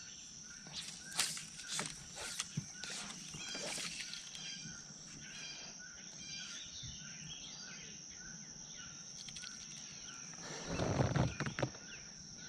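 Summer lakeside ambience: a steady high insect drone with short repeated bird calls over it. A few light clicks and knocks of fishing-gear handling come in the first few seconds, and a louder rustle about eleven seconds in.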